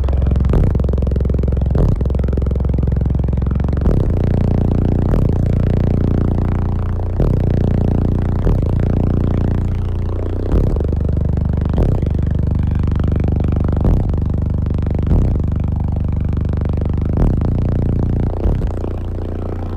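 Four SSA Evil 18-inch subwoofers in a ported box tuned to 47 Hz playing bass-heavy music at high volume. A deep, sustained bass dominates, with sharp knocks about every one to two seconds.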